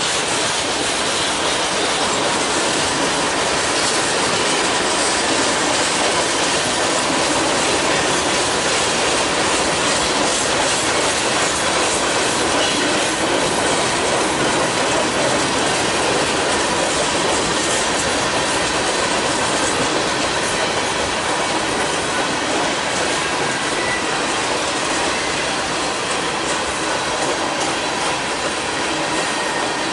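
Freight cars of a mixed freight train rolling past at close range: steady, loud noise of steel wheels running on the rails, with faint thin squealing tones held underneath throughout.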